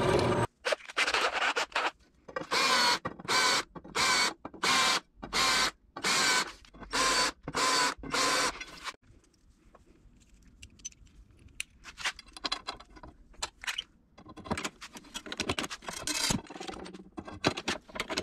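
Drill press bit cutting into aluminium tubing in a run of short, evenly spaced bursts, about one and a half a second, each with a ringing pitch. After about nine seconds come quieter metal clicks and clinks as rivets and small aluminium parts are handled, growing busier near the end.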